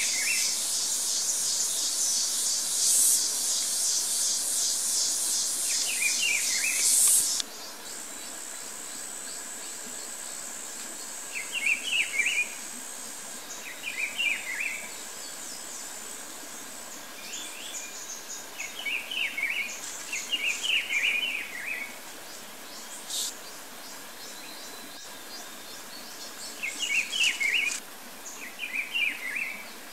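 A loud, rapidly pulsing insect buzz that cuts off suddenly about seven seconds in, leaving a fainter, steady high-pitched insect whine. A bird repeats a short chirping phrase every few seconds throughout.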